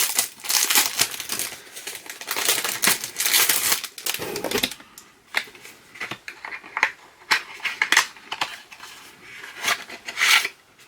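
Packaging crinkling and rustling as a set of coasters is unwrapped, then a run of separate light clicks and taps as they are handled, through the second half.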